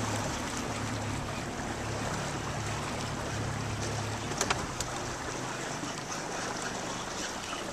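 A boat motor idles with a steady low hum, fading out about halfway through, under wind and water noise. There are a couple of sharp clicks about four and a half seconds in.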